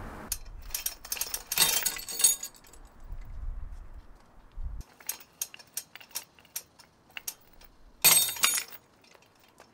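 A steel chain and shackles clinking and rattling under a hanging scale as a small 3D-printed test piece is loaded to the point of breaking. There are two louder bursts of clatter, about two seconds in and again about eight seconds in, as a specimen gives way and the hardware drops and rattles.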